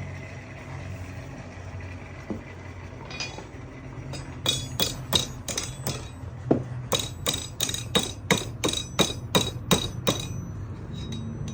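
Hand hammer striking hot steel on a 66 lb London pattern anvil, each blow with a short bright ring. A few blows come about four seconds in, then a steady run of about three blows a second.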